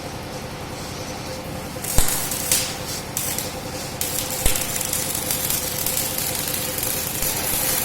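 Hissing, crackling noise of welding work on steel pipe, starting about two seconds in and coming in uneven spurts, over a steady electrical hum. There are two sharp knocks, the first as the hiss begins and the second about four and a half seconds in.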